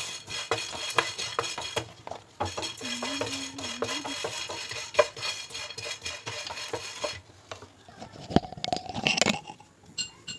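Whole spices being dry-roasted in a nonstick pan and stirred with a wooden spatula: a dry rattle and scrape with many light clicks. It grows quieter and sparser after about seven seconds.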